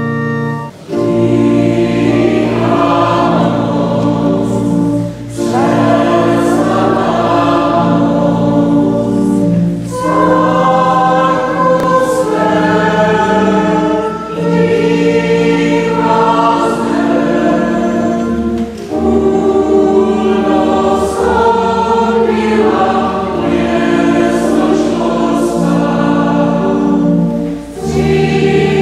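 Mixed choir singing with pipe organ accompaniment, the organ holding steady notes under the voices. The singing runs in phrases broken by short breaths every few seconds.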